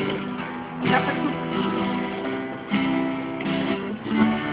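Acoustic guitar strumming chords, a new chord struck about every one and a half to two seconds.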